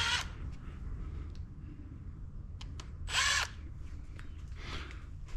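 Power drill/driver with an 8 mm socket spinning out the rocker arm bolts on an L83 5.3 liter engine: its whine stops just after the start, then one short burst about three seconds in rises and falls in pitch. A few light clicks come between.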